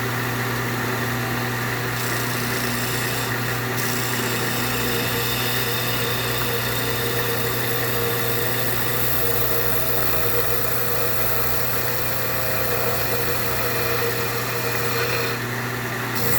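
Electric disc sander running steadily with a loud motor hum, while a rubber abrasive-cleaning stick is held against the spinning sanding disc to scrub out embedded sawdust.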